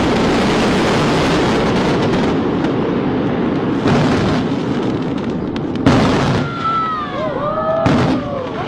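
Daytime fireworks fired in quick succession from a barge: a dense continuous rush of launches for the first two seconds or so, then three heavier blasts about two seconds apart. Several gliding whistles rise and fall near the end.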